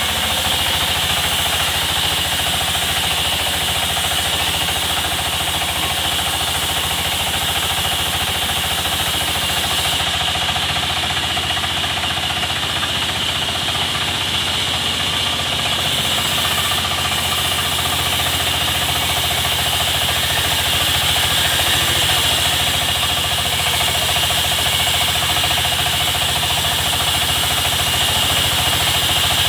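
Sawmill machinery running steadily: an even mechanical drone with a constant high whine over it.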